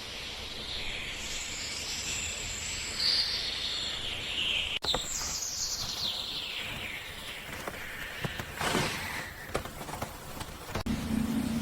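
Outdoor ambience with high chirps like birdsong. Several long chirps fall in pitch over a steady hiss. Near the end a steady low hum comes in.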